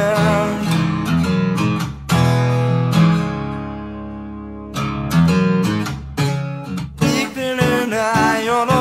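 Acoustic guitar music with strummed chords in an instrumental passage of a song. One chord rings out and fades about three seconds in, strumming picks up again about five seconds in, and a wavering melody line joins near the end.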